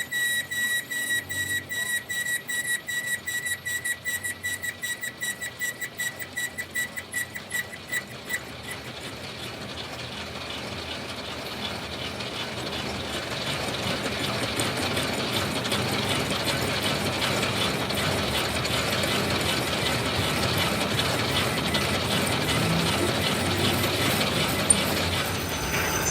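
Metalworking machine tool running: a fast, even mechanical clatter with a steady high whine for about the first eight seconds, giving way to a continuous rough machining noise that grows louder and holds.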